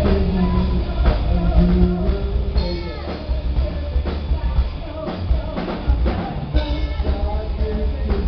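Gothic rock band playing live: drum kit, guitar and bass with a steady beat.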